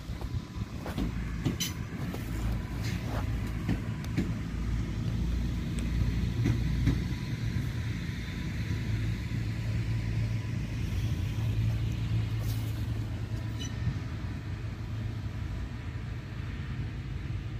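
Newag Impuls II electric multiple unit moving off slowly: wheels click over rail joints and points in the first few seconds, and a faint whine rises in pitch through the middle, over a steady low rumble.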